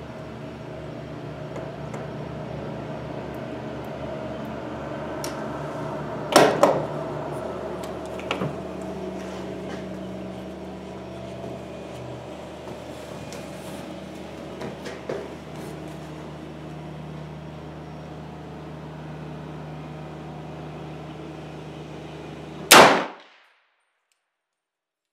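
Shots from a 300 Blackout AR rifle: a sharp report about six seconds in and a louder one near the end, with fainter cracks between, over a steady background hum. The sound cuts off right after the last shot.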